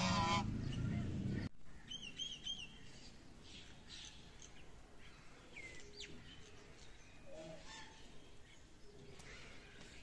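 A domestic goose honks once at the start over a low rumble that cuts off abruptly about a second and a half in. Then a small bird chirps three times in quick succession, with faint scattered sounds after.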